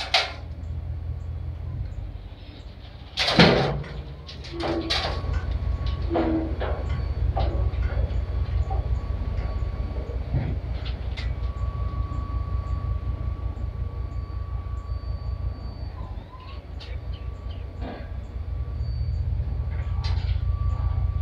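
Truck engine idling with a steady low rumble, beside a delivered gravel pile. A loud clank about three seconds in and scattered knocks come over it.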